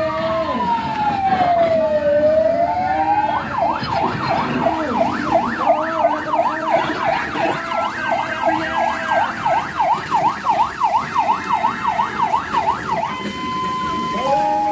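Electronic siren sounding a slow wail that falls and then rises, then switching to a fast yelp that sweeps up and down about two to three times a second, and changing to steadier tones near the end.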